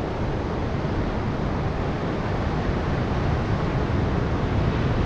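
Ocean surf washing onto a beach, with wind rumbling on the microphone: a steady rushing noise that builds slightly toward the end.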